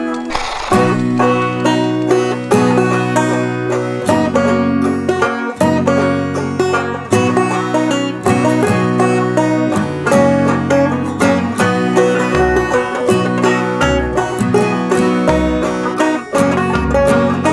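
Background music: a fast, busy plucked-string tune over held low notes, with a deep bass coming in about two-thirds of the way through.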